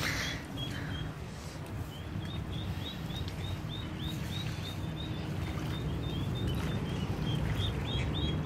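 Mallard ducklings peeping: a steady run of short, high chirps, about three a second, from about two seconds in. These are the calls ducklings give when they are looking for their mother. A low steady rumble runs underneath.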